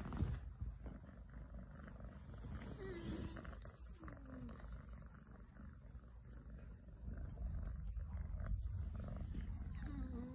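Kitten purring, a steady low rumble while it is being stroked, louder in the second half. A brief handling bump right at the start.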